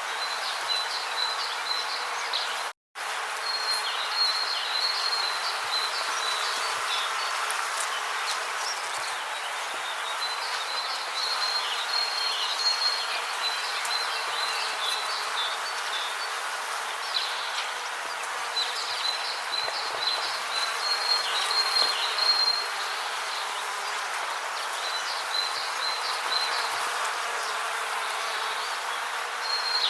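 Rainforest ambience: a steady hiss under a high, pulsing insect chirp that comes in phrases of a few seconds, with scattered faint ticks. The sound cuts out completely for a moment about three seconds in.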